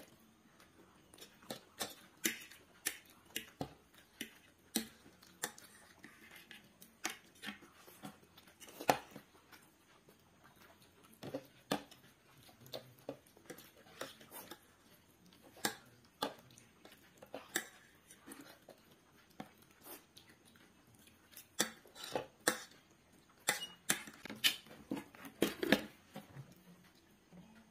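Metal forks clinking and scraping on plates in sharp, irregular clicks, with some chewing between them.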